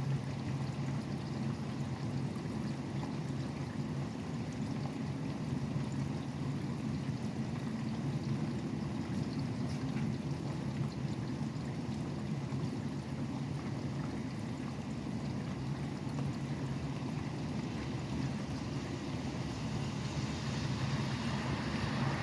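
Steady rain falling, with the low, constant hum of highway traffic underneath. Near the end a passing vehicle grows louder, its hiss rising above the rain.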